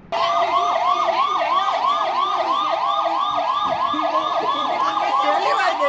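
Police vehicle siren sounding a fast yelp that rises and falls about four times a second, with a steady tone held underneath.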